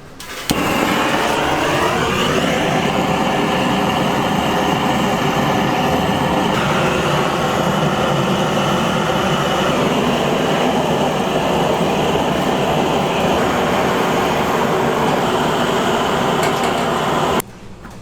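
An electric motor in a kitchen machine switches on, spins up over a couple of seconds, runs steadily and loudly for about seventeen seconds, then cuts off suddenly.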